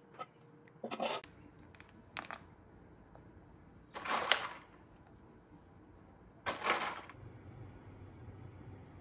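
A metal spoon clicking lightly against a baking dish a few times while cherries are spooned onto the batter, followed by two louder noises about half a second each, around four and six and a half seconds in.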